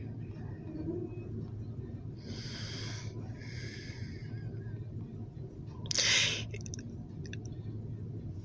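Soft breaths close to the microphone over a steady low engine hum, with one louder, short noisy burst, like a sharp sniff, about six seconds in.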